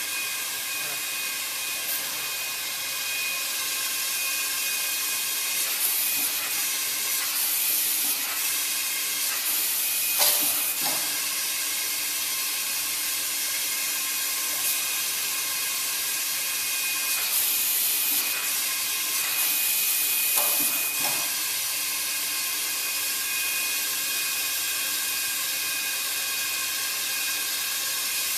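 Hot air seam sealing machine's air heater blowing a steady hiss, with a steady multi-tone whine from its fan. The coated jacket fabric rustles and crinkles at times as it is handled, loudest about ten seconds in.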